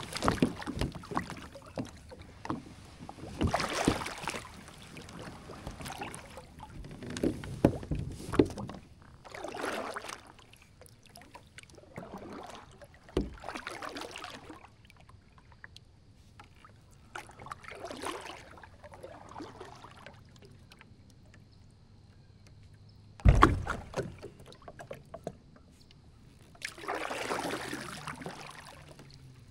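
Kayak paddle strokes: the double-bladed paddle dipping and swishing through the creek water every few seconds, with fewer strokes through the middle. A sharp knock comes about 13 seconds in and a louder one about 23 seconds in.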